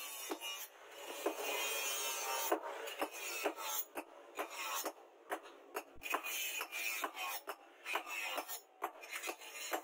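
Hand hammer striking a red-hot truck-leaf-spring knife blade on a steel post anvil: sharp blows at about two a second over a steady hiss.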